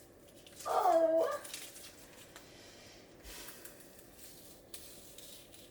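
A pet animal's single short cry about a second in, its pitch bending down and back up, over faint room noise.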